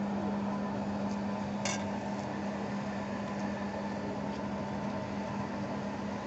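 A steady low hum with an even hiss from a noodle wok simmering on a gas stove. One light metal clink comes about a second and a half in.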